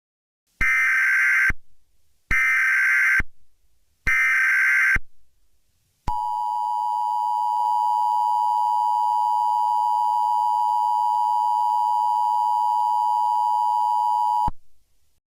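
Emergency Alert System header: three roughly one-second bursts of SAME digital data tones, followed by a steady attention tone that holds for about eight seconds and cuts off sharply. It signals the start of a new weather warning.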